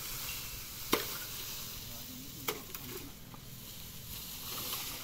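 Cut bamboo being handled and dragged: its leafy stalks rustle in a steady hiss. Two sharp knocks of bamboo stalks come about a second in and about two and a half seconds in.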